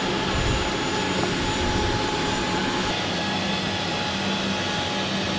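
Steady rush and whine of an aircraft turbine running, with thin steady tones: a high whistle that stops about three seconds in, and a low hum after that.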